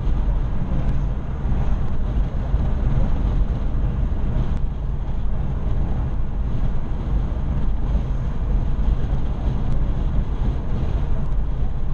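Steady low rumble of a car's engine and tyres at highway cruising speed, heard from inside the cabin.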